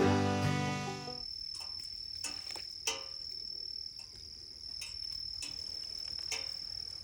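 Bluegrass-style guitar and banjo music fading out in the first second. After it, a steady high-pitched insect trill carries on, with a few scattered clicks or snaps, the sharpest about three seconds in.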